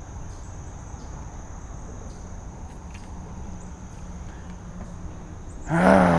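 Insects chirring in one steady, unbroken high note, over a low rumble. Near the end a man's voice starts up, falling in pitch.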